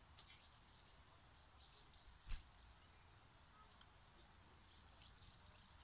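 Near silence: faint woodland ambience with scattered short, high chirps over a thin steady high hiss, and one brief click a little past two seconds in.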